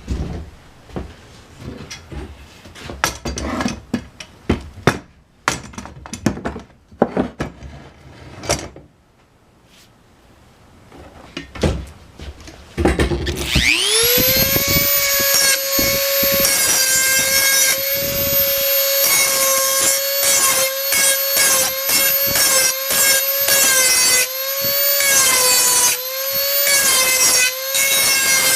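Clicks and knocks of handling, then about halfway through a Dremel 4000 rotary tool spins up to a steady high whine. Its pitch dips slightly and a grinding rasp comes and goes as the bit is worked against a tool to sharpen it.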